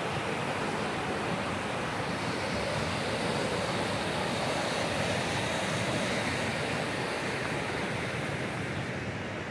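Rushing mountain stream: whitewater tumbling over rocks and boulders in a steady, continuous rush.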